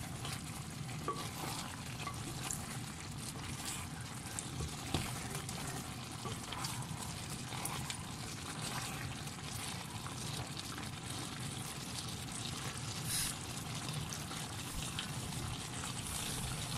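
Adobo sauce bubbling and sizzling around chicken feet in a pot, with many small pops, as it simmers down and thickens.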